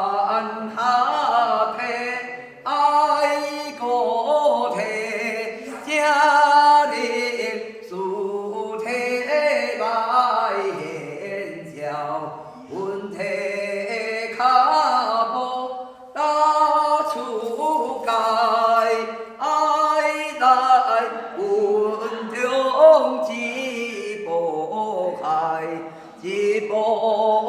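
A woman singing unaccompanied in a flowing, wavering chant-like melody, a spirit medium's spirit song. It comes in phrases of two to four seconds separated by short breaths.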